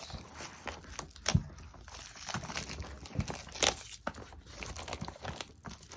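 Packaging wrapper being worked off a boxed set by hand: rustling and crinkling with a few sharp taps and clicks.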